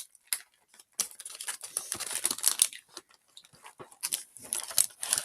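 Plastic snack packaging crinkling and rustling in bursts, densest about a second in and again near the end.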